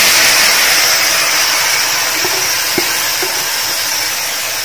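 Boiled potatoes and their cooking water sizzling in a hot pan of fried cabbage and onion masala: a steady hiss that slowly fades.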